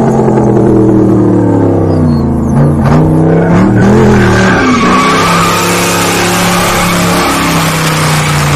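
Car engine revving, its pitch dipping and climbing, then tyres squealing from about halfway through as the car slides sideways in a drift, with the engine held steady under the squeal.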